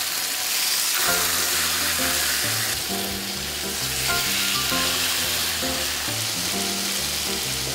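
Steak sizzling as it fries, a steady hiss throughout. Background music of held notes comes in about a second in.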